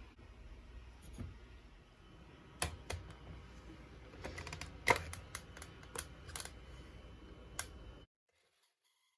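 Irregular light clicks and knocks over a low steady hum, the sharpest about five seconds in; the sound cuts off suddenly about eight seconds in.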